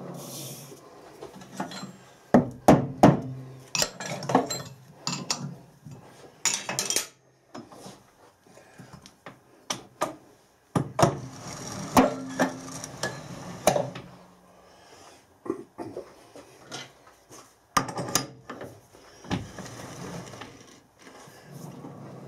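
Irregular metallic clinks and knocks as a bar end is set in a lathe's four-jaw chuck: the jaws are adjusted and the chuck is turned by hand to get the work running true.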